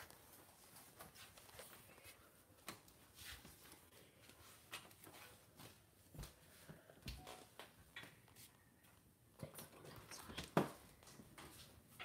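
Near silence with faint scattered clicks and knocks, and one sharper knock about ten and a half seconds in.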